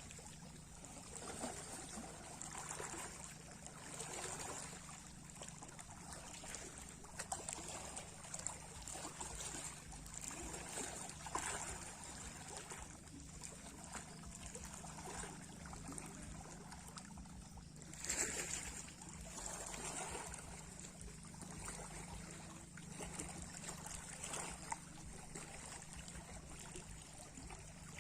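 Small sea waves lapping and washing, rising and falling every second or two, with a bigger wash about eighteen seconds in.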